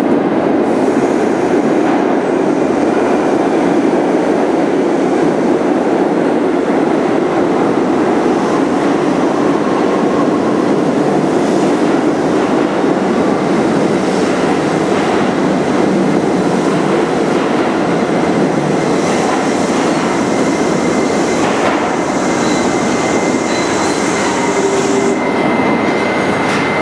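R68 subway train pulling out of an underground station, a loud steady rumble of wheels clattering over the rails as it passes. Near the end an R68A train comes in on the next track, adding a thin high wheel squeal.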